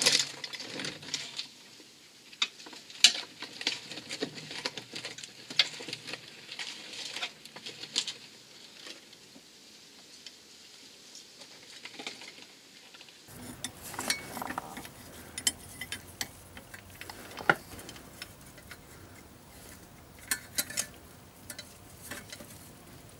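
Scattered metallic clicks and clinks of hand tools as a long wrench on the crankshaft pulley bolt of a Peugeot 206 HDi diesel turns the engine by hand to line up the flywheel timing hole for pegging.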